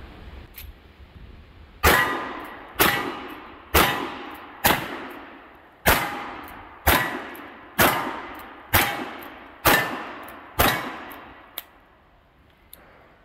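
Ten shots from a pair of .45 Richards-Mason cartridge conversion revolvers, fired alternately about one a second with smokeless loads, with the clang of steel targets ringing after them.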